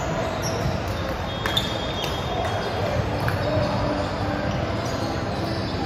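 Large indoor sports hall ambience: a reverberant din of voices, with the occasional sharp thud of balls being hit and bouncing on the hardwood courts, one clear hit about a second and a half in.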